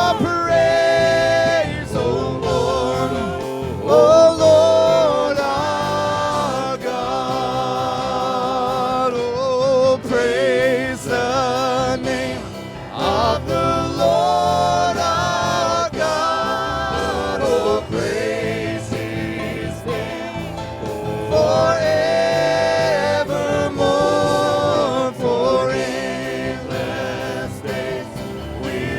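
Live gospel worship music: several voices singing a slow hymn with vibrato over instrumental backing.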